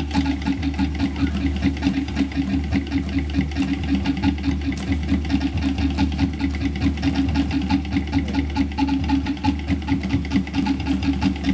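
Fast, steady drumming for a Samoan fire knife dance, an even beat of about six strokes a second.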